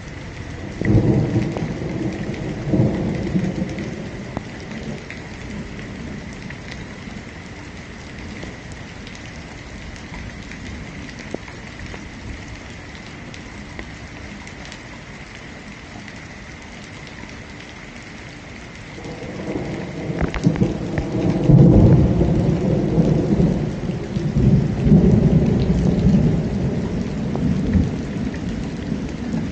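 Thunderstorm: steady rain falling, with a rumble of thunder about a second in and a longer, louder roll of thunder starting about two-thirds of the way through and rumbling on to the end.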